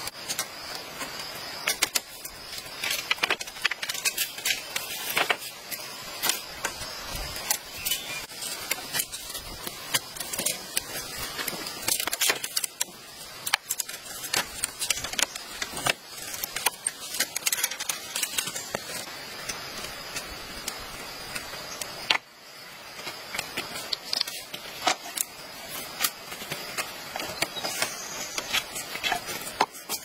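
Thin split-bamboo strips clicking and rattling against the ribs of a bamboo frame as they are woven in and out, a quick, irregular run of light taps.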